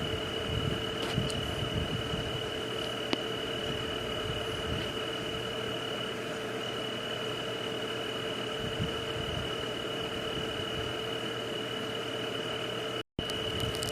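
Night-time nature ambience: a steady high drone over an even hiss, with a lower steady hum beneath and a few faint clicks. The sound cuts out completely for an instant about 13 seconds in.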